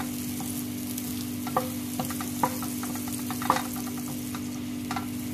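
Butter sizzling as it melts in a hot metal pot, pushed around with a wooden spoon that knocks and scrapes against the pot several times. A steady low hum runs underneath.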